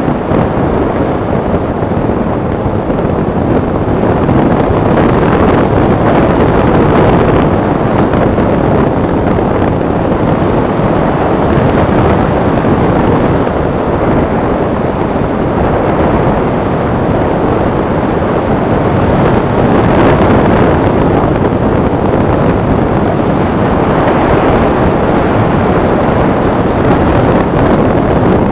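Steady wind rush over the microphone of a camera riding on a foam HobbyKing Fox RC glider in flight.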